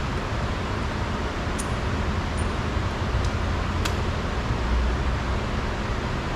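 Steady low background noise with three faint, light clicks in the middle.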